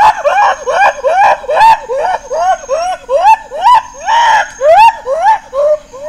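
Baby gorilla crying for its mother after being left behind by its family: a rapid run of short rising-and-falling wails, about three a second, with one longer, louder cry about four seconds in.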